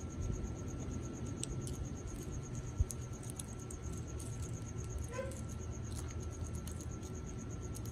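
Yellow-naped amazon parrot cracking and nibbling pistachios from a food bowl: scattered faint beak clicks and crunches. A steady high-pitched chirring trill runs underneath, and a short squeaky call sounds about five seconds in.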